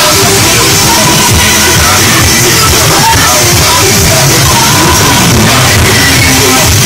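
Car sound system blasting music at very high volume, with vocals over a heavy bass line.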